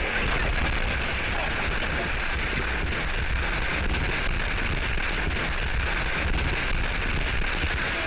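Whitewater rapids rushing around an inflatable raft as it runs a steep chute, heard from aboard the raft: a loud, steady roar of water with a deep rumble underneath.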